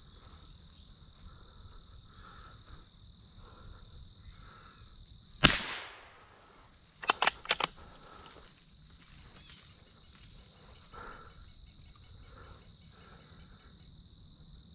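One .22 LR rifle shot from an antique Savage Sporter, a sharp crack with a short fading tail, about five and a half seconds in. About a second and a half later come four quick metallic clacks of the bolt being worked to eject the case and chamber another round. Insects chirr steadily and high underneath.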